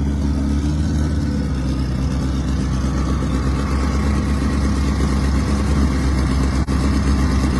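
Car engines idling steadily at a drag strip, loud and close, with no revving. A single brief click about seven seconds in.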